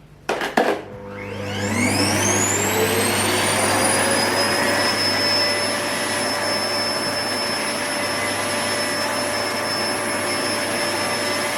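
Vax VX75 barrel vacuum cleaner with its turbo brush head fitted, starting up after a couple of knocks: the motor winds up with a rising whine over a few seconds, then runs steadily at a loud level.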